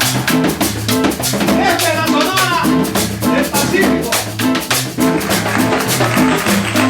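Latin dance music from a band: drums and percussion over a steady, repeating bass line, with a wavering melody line about two seconds in.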